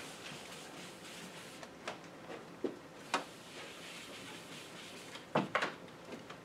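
Blackboard being wiped with a felt eraser: a faint soft rubbing, with a few light knocks scattered through it, the loudest pair a little past halfway.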